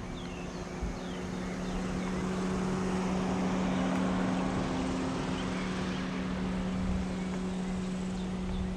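A steady engine hum with a rushing sound that swells about halfway through and then fades, as of a motor vehicle going by. Birds chirp briefly near the start and the end.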